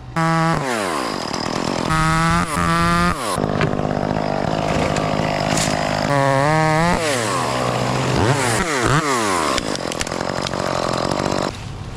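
Two-stroke chainsaw revving hard several times, its engine note climbing to full speed and falling back between bursts. It cuts off suddenly near the end.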